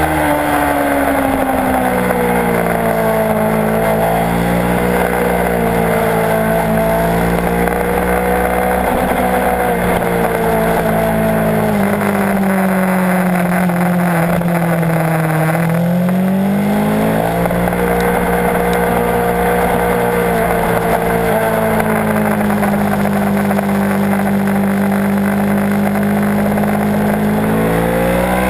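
Kawasaki Ninja 650's parallel-twin engine under hard riding on a racetrack, its pitch rising and falling with the throttle and gear changes. About halfway through the pitch sinks slowly, then climbs back quickly. Steady wind rush over the camera runs under the engine.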